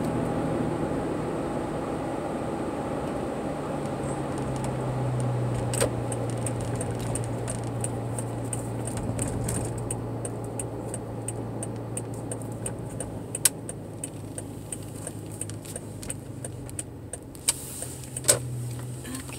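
Car engine running with road and cabin noise that slowly fades as the car slows on arrival. Scattered light clicks and rattles come in the second half.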